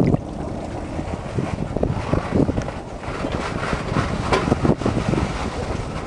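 Wind buffeting the microphone in irregular gusts, over water splashing and lapping close by, with a busier patch of splashes in the second half.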